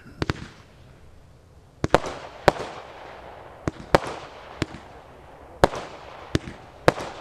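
'Chinese Dragon' multi-shot firework (Oriental Collection) firing in sequence: about eleven sharp bangs at uneven intervals, some in quick pairs, each trailing off briefly.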